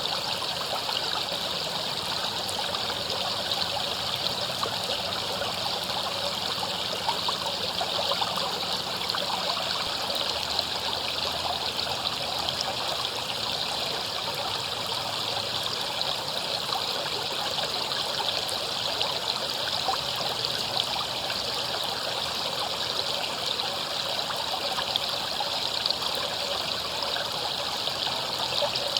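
Shallow river running over rocks: a steady, even flow of water with a constant babble of small splashes and trickles.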